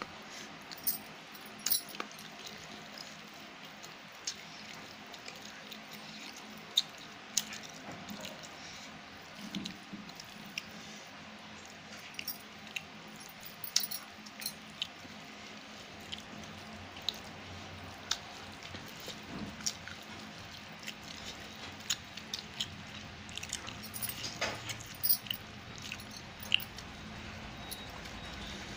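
Fingers mixing rice and chicken curry on a stainless steel plate: scattered sharp clicks and clinks of fingers and a ring against the metal, over a low steady hiss.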